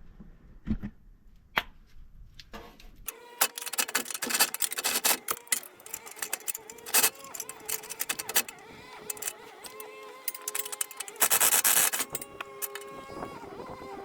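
Metal hand tools and bolts clinking and rattling in quick, busy runs while parts are unbolted under a truck, with one loud hissing burst about eleven seconds in.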